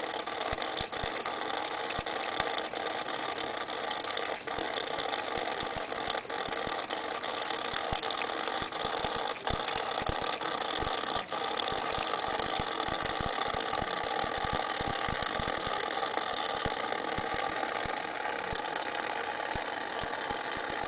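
Thin stream of tap water running steadily into a stainless steel kitchen sink, a constant hiss, with a cat lapping at the stream and small irregular splashy ticks throughout.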